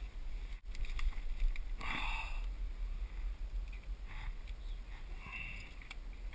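Steady low wind noise on the microphone, with a few short rustles, the loudest about two seconds in, as a hand reaches in among dragon fruit cactus stems.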